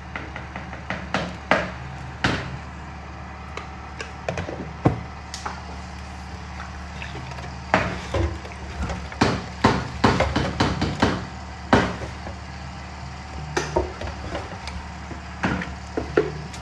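Irregular wooden knocks and taps of kitchen preparation, coming in clusters, over a steady low hum.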